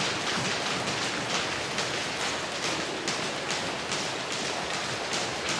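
Skipping ropes of a group of jumpers slapping the gym floor: a steady stream of overlapping ticks, with stronger slaps about twice a second.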